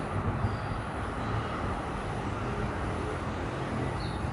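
Steady outdoor background noise: an even low rumble with a faint hum, like distant road traffic around the site.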